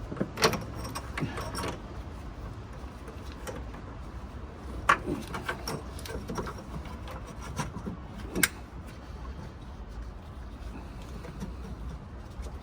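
Parts and tools being handled under a car's hood: scattered clicks and knocks, three of them sharper than the rest, over a steady low rumble.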